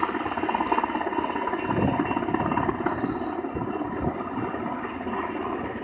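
Army helicopter hovering low overhead: a steady, pulsing rotor chop over the engine noise.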